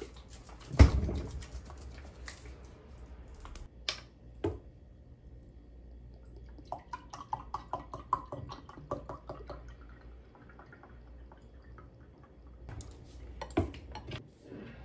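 Juice glugging in quick gurgles as it is poured from a plastic bottle into a glass tumbler. There is a thump about a second in, a few knocks and clicks as the bottle is handled, and light clinks near the end as the glass and a fork are set down.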